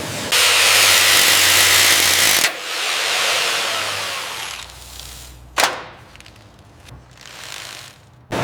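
Workshop tool noise: a loud hiss for about two seconds, then a second hiss that fades away, and a single sharp knock about halfway through.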